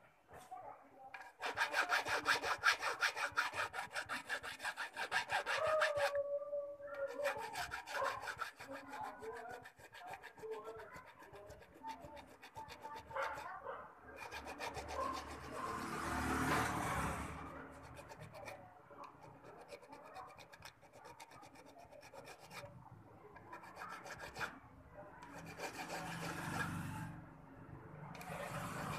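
Jeweller's flat hand file rasping back and forth across a small jewellery piece held against a wooden bench pin. It comes in runs of quick strokes broken by short pauses.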